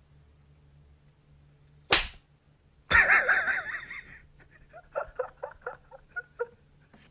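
Comedy sound effects over the cat clip. A sharp whip-like crack about two seconds in, then a loud burst a second later with a pitched sound that fades over about a second. Then a quick run of short voice-like syllables, about five a second, like a giggle.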